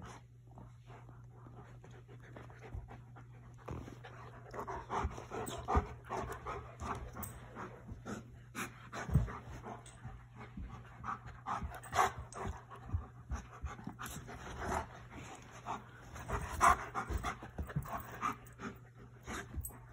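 Dogs panting hard in quick, uneven bursts while an Alaskan Malamute and a Newfoundland puppy wrestle, with occasional knocks and scuffles. The panting grows louder from about four seconds in.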